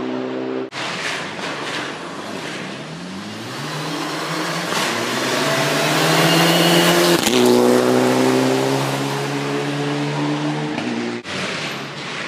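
Rally car coming flat out down a gravel road and passing close by, its engine at high revs and climbing in pitch as it accelerates, loudest as it goes past about seven seconds in.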